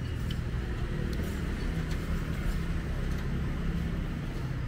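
Steady road-traffic noise with the low hum of passing vehicle engines.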